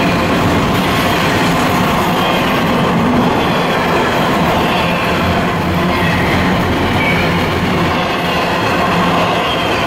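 Intermodal freight train cars, trailer flatcars and double-stack container well cars, rolling past: a loud, steady rumble and clatter of steel wheels on the rails.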